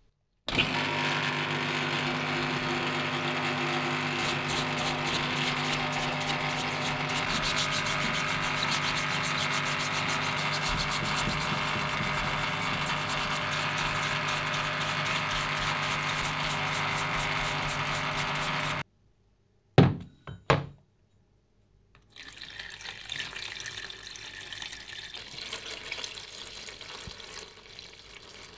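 Parts washer pump running with a steady hum while solvent flows out through a flow-through brush scrubbing a rusty threaded steel spindle; it cuts off suddenly. Then two short knocks, followed by liquid being poured and splashing into a tray of rusty threaded parts soaking in rust remover.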